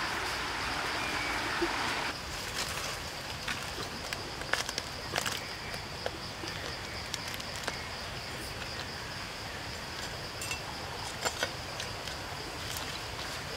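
Steady high-pitched insect drone in forest ambience, with scattered sharp clicks and crackles. A louder hiss fills the first two seconds and cuts off suddenly.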